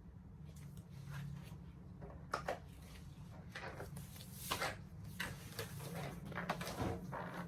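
Large silicone pop-it fidget toy having its bubbles pressed one after another: a string of irregular soft pops.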